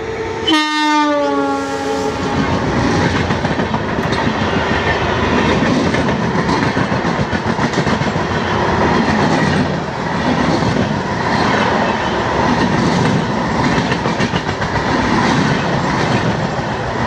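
Passenger train with an electric locomotive passing close by. Its horn sounds about half a second in and slides down in pitch as the locomotive goes past, then the coaches roll by with a steady rumble and clickety-clack of wheels over rail joints.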